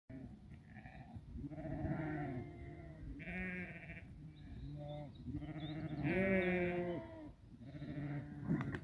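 A flock of sheep bleating, one call after another with some overlapping. The longest and loudest bleat comes about six seconds in.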